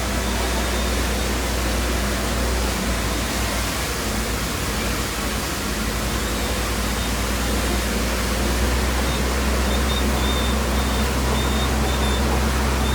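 Heavy machinery engine running steadily: a constant low rumble under an even hiss.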